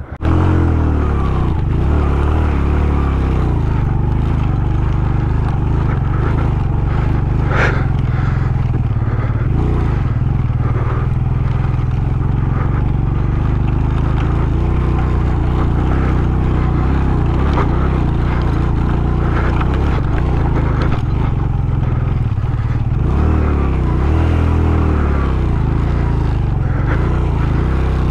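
Suzuki GS150SE motorcycle's single-cylinder four-stroke engine running steadily while riding a rough stony track, its revs shifting about two-thirds of the way through. There is a single sharp knock about eight seconds in.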